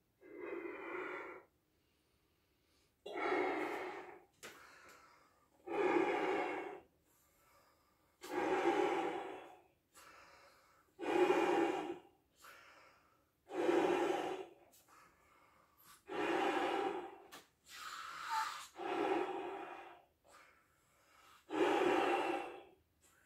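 A man inflating a clear 24-inch Belbal balloon by lung power: about nine long breaths blown into it, one every two to three seconds, with quieter in-breaths between.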